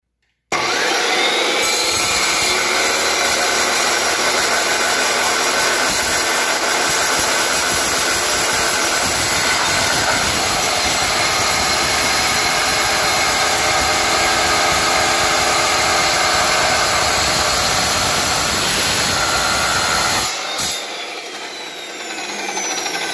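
Makita cold cut saw starting up about half a second in, its whine rising as the carbide-toothed blade spins up, then cutting steadily through half-inch steel angle iron. About twenty seconds in the cut finishes, the level drops, and the blade winds down with a falling whine.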